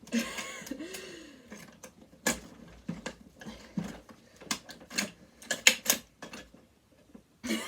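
Sewing machine's metal parts clicking and clattering as they are handled and pulled apart: an uneven string of sharp clicks with some scraping at the start, the loudest clicks about two seconds in and near six seconds.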